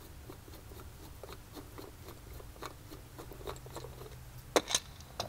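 Faint clicks and scrapes of a screwdriver turning the cap screws on a Holley Hyperspark distributor to take the cap off, with two sharper clicks near the end.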